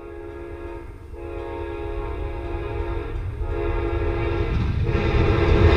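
Amtrak GE P42 diesel locomotive sounding its multi-chime horn as it approaches: two long blasts, a short one and a long one, the standard grade-crossing warning. The horn and the low rumble of the locomotive grow steadily louder as the train nears.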